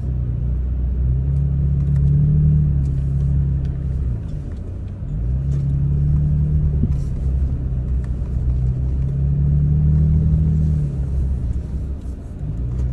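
Vehicle engine heard from inside the cab, a low drone under load on a dirt trail climb, its pitch rising and falling every two to three seconds as the throttle is worked. Scattered light clicks and rattles over it.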